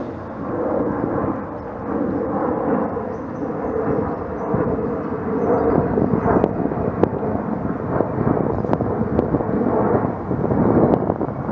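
A steady low rumbling drone, like a distant engine or aircraft, with a few faint ticks in the second half.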